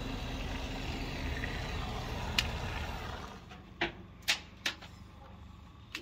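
Steady engine drone with low rumble for about three seconds, then it drops away, leaving a quieter background broken by four or five sharp clicks or knocks.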